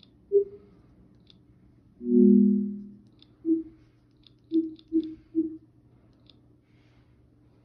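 Apple TV (tvOS) interface sounds through the home theater speakers. A soft pitched blip comes about half a second in. Around two seconds in there is a longer, louder low two-note tone as an app opens, followed by four short pitched blips as the selection moves across the menu, with faint high ticks alongside.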